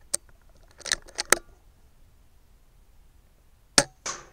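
Rifle handling and shooting: a few sharp metallic clicks in the first second and a half, then a single loud shot near the end, followed a fraction of a second later by a short noisy burst.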